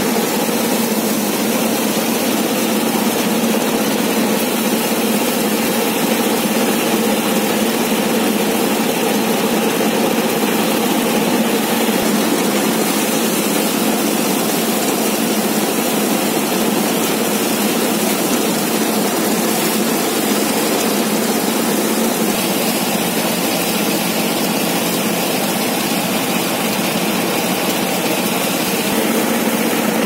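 Belt-driven drum wheat thresher running steadily while wheat bundles are fed into it: a loud, continuous mechanical drone with a steady low hum.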